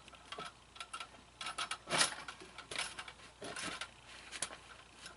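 Irregular light clicks and clatters of an animatronic prop's frame parts being handled and fitted together, with a louder knock about two seconds in.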